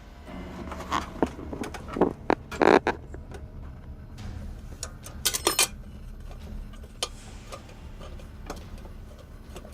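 Scattered clicks and knocks of small metal parts being handled and fitted while a Ryobi AP-10 planer is reassembled, over a low steady hum. There is a quick run of clicks about five and a half seconds in.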